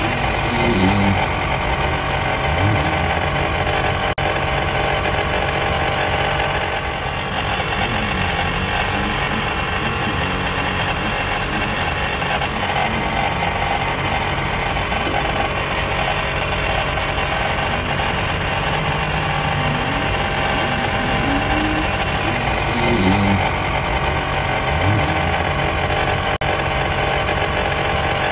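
Dirt bike engines revving on a motocross track, their pitch rising and falling several times over a steady engine drone.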